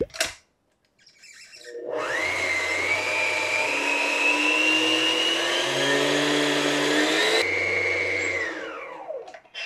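Electric stand mixer's motor and wire whisk beating egg whites to stiff peaks. It starts up about two seconds in with a steady whine that creeps up in pitch, then spins down with a falling whine near the end.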